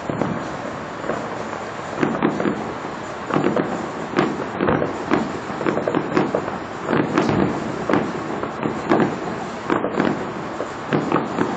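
Distant fireworks display: an irregular string of bangs and crackling pops, several each second, each trailing off in a smear of echo.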